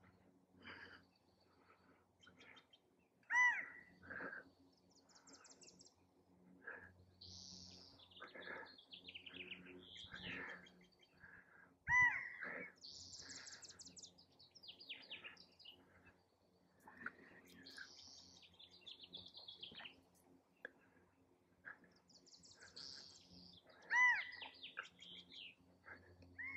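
Male California quail calling for a mate: three loud calls, each a sharply arched note, about every ten seconds. Other birds chirp and trill faintly in between.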